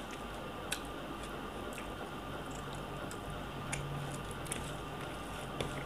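Eating rice by hand: fingers squishing and mixing cooked rice with egg bhujiya on a plate, with soft wet mouth sounds and a few sharp little clicks.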